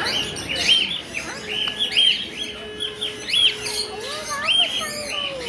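Parrots calling: a steady run of short, arched chirps, roughly two a second, with some lower gliding calls about four seconds in.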